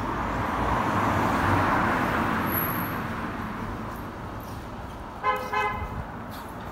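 A car passes along the street, its sound rising and then fading away. About five seconds in, a car horn gives a short toot.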